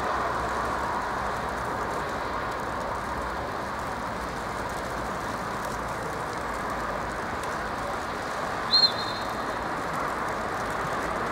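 A short, high-pitched blast on a referee's whistle about nine seconds in, over a steady background rush of outdoor noise.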